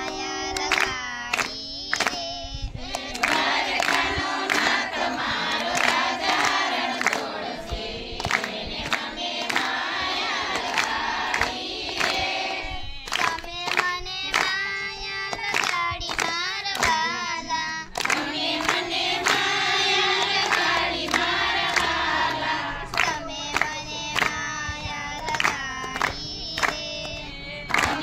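Voices singing a Gujarati devotional Gor Maa song together, over a regular beat of sharp strikes about twice a second.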